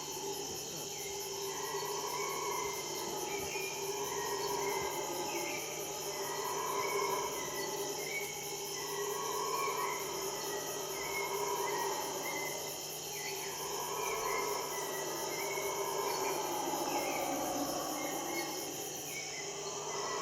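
Chorus of insects: several steady high-pitched buzzes layered with a very fast pulsing trill that stops shortly before the end. Under them a lower call swells and fades every second or two.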